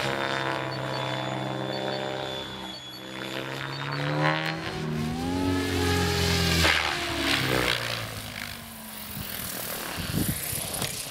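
Mikado Logo 600 electric RC helicopter flying aerobatics: the whine of its rotor and motor rises and falls in pitch as it swoops about. It is loudest as it passes close about six to seven seconds in, then drops quieter as it comes down low over the ground.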